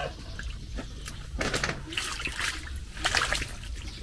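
Frogs splashing and shifting about in shallow water, with several short splashes starting about a second and a half in.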